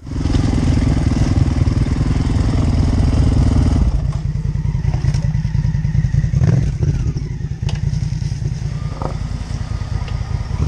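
Off-road dirt bike engine running on a trail ride, starting abruptly and changing note about four seconds in. A few short knocks sound over it.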